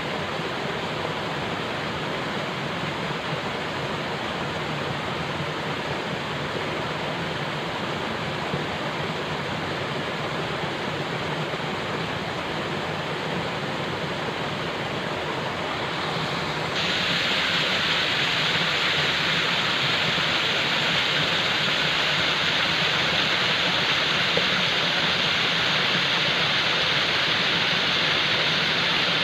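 Falling water rushing steadily. About two-thirds of the way through it abruptly turns louder and hissier and stays that way, like a cut to a second stretch of the water recording.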